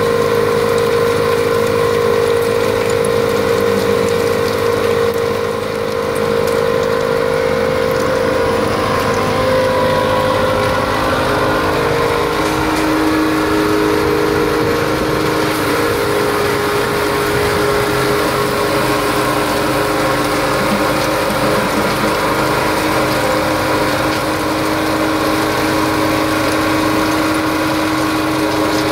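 Mobile soil screener running, its engine driving the agitator that shakes the steel mesh deck, with a tracked excavator's engine working alongside as hardcore is tipped on and rattles across and through the screen. A steady mix of engine tones, one settling lower about twelve seconds in.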